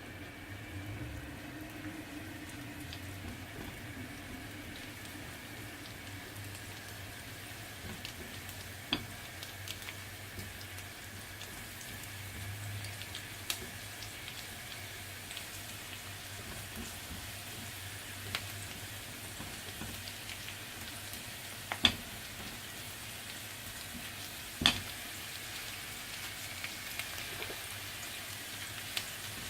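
Oil sizzling in a skillet as food is stir-fried, a steady frying hiss. A few sharp knocks sound against the pan, the loudest two about three seconds apart late on.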